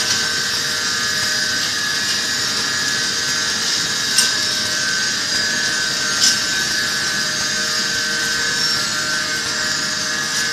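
Pillow-type flow-wrap packing machine running as it wraps stacks of plastic cups in film: a steady mechanical whirring hiss with a faint steady whine. Two sharp clicks come about two seconds apart near the middle.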